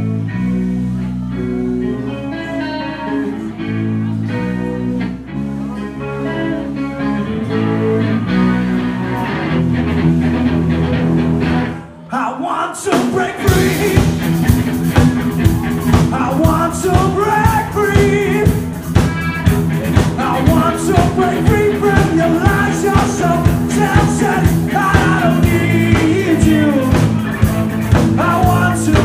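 A live rock and blues band playing. It opens with guitar and bass. After a short break about twelve seconds in, the full band comes in with a steady drum beat and singing.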